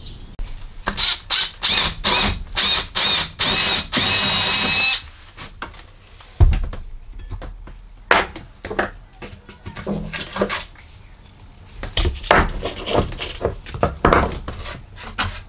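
Power drill cutting through a plywood subfloor: several short trigger bursts, then a steady run of about a second that stops sharply. Scattered knocks and rattles follow as the drill and the cut piece are handled.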